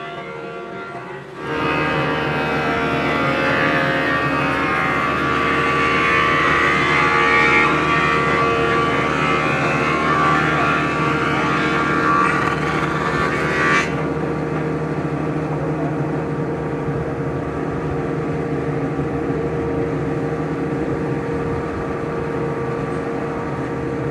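A machine motor runs steadily, starting abruptly just over a second in. A harsher, hissing layer over it stops suddenly about halfway through, while the motor keeps running.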